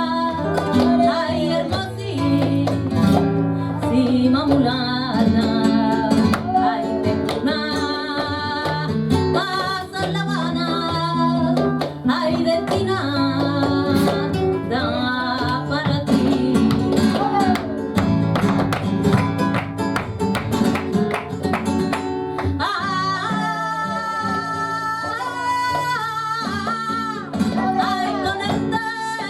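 Live flamenco guajira: acoustic flamenco guitar strumming and plucking under a singer's voice, with sharp percussive strikes coming thick and fast in the middle.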